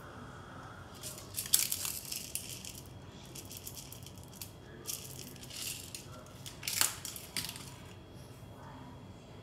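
Bursts of crunching and rattling handling noise, loudest about a second and a half in and again near seven seconds, with quieter clicks between.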